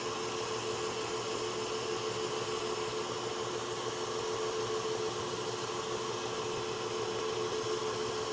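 Scroll saw running steadily, its blade cutting through a wooden board along a paper template, with a steady hum under the noise of the cut.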